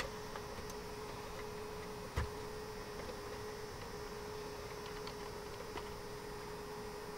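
Light clicks and handling noise of cable plugs being pushed into the back of a DVR, with one soft knock about two seconds in, over a steady faint hum.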